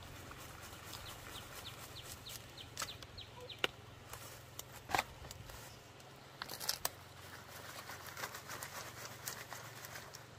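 A knife cutting hands of green bananas off the stalk, giving a few sharp snaps and cracks, the loudest about five seconds in, over a steady rustle of banana leaves and grass being handled.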